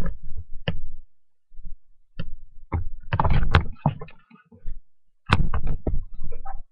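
Irregular thumps, knocks and clicks in short clusters: handling noise from a hand-held camera being swung about.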